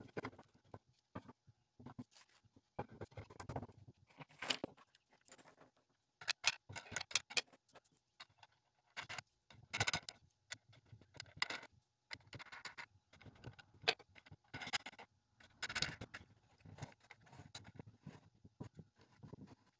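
Metal washers and wing nuts clinking and scraping as they are handled and threaded onto the bolts of a wooden clamping board, with irregular knocks and taps of wood on the workbench.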